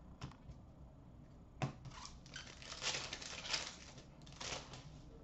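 Trading cards being handled: a couple of sharp taps as cards are set down on a glass counter, the sharpest about a second and a half in, then a run of soft rustles and swishes as cards are slid one past another in the hand.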